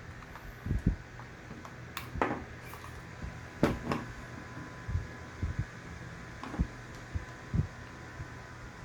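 Irregular small knocks and a few sharp clicks from hands working on a car door latch assembly, over a steady fan-like hum.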